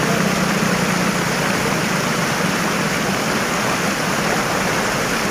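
Steady rush of floodwater churning around a small Ashok Leyland goods truck as it wades through the flooded road, pushing a bow wave. A low engine hum under the water fades about two seconds in.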